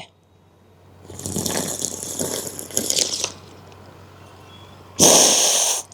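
A handful of water splashing as it is sniffed up the nose from cupped hands, then, about five seconds in, a short, forceful blow through the nose expelling it: a hand nasal rinse to clear the nostrils.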